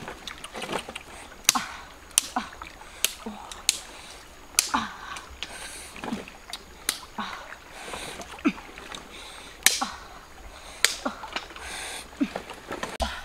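Irregular sharp taps and clicks, roughly one a second, with some water splashing, from hands and a stick working inside a large metal wok.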